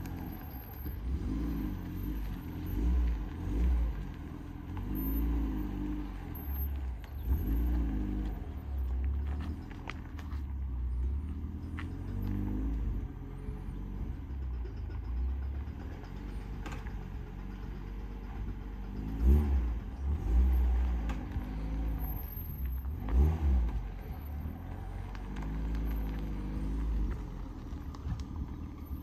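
Small SUV's engine running at low speed while reversing a boat trailer, its pitch rising and falling again and again as the driver works the throttle, over a steady low rumble.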